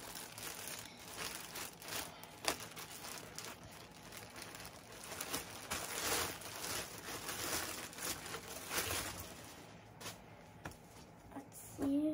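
Clear plastic poly bag crinkling and rustling in irregular bursts as it is pulled open and a hockey jersey is drawn out of it. The crinkling thins out for the last couple of seconds.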